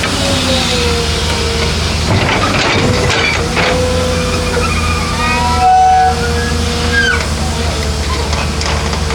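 Diesel engine of heavy earthmoving machinery running steadily, with whining tones that glide up and down over it and a few knocks about two to three seconds in.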